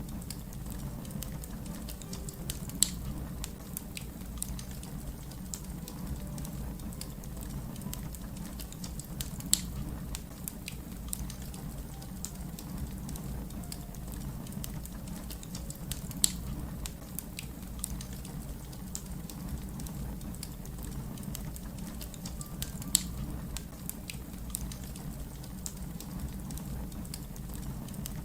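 Fire crackling: a low steady rumble of flames under frequent small snaps, with a louder pop about every six or seven seconds.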